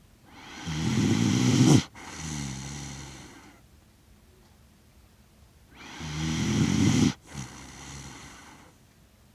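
Shiba Inu snoring: two snoring breaths about five seconds apart, each a louder snore that stops abruptly, followed at once by a softer one that fades away.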